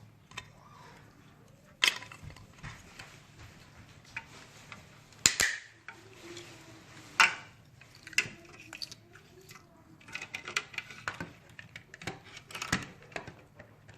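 Irregular clicks and knocks of small hard parts of a handheld vacuum being handled and set down, with a few sharper knocks standing out among lighter ticks.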